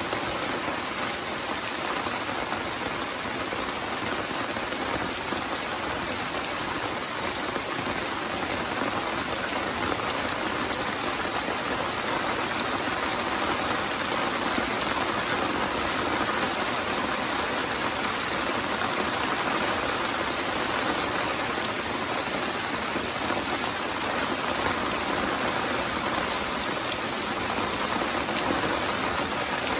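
Steady rain falling, with faint scattered drop ticks in the steady patter.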